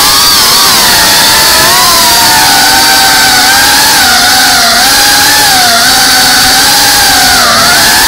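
FPV drone's electric motors and propellers whining loudly and steadily, heard from the drone's own onboard camera. The pitch wavers slightly with throttle and dips briefly near the end.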